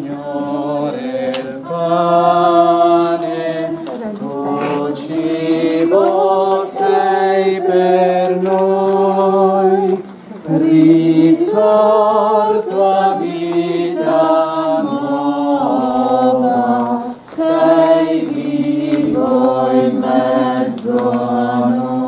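A group of voices singing a slow religious hymn without accompaniment, in long held phrases with short breaks between them.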